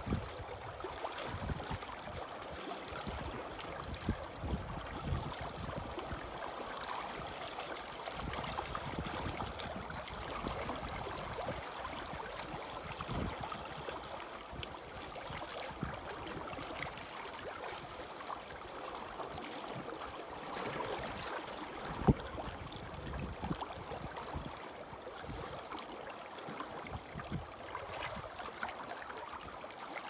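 Small waves lapping and gurgling against shoreline rocks, a steady wash with irregular low thumps. One brief, louder thump about 22 seconds in.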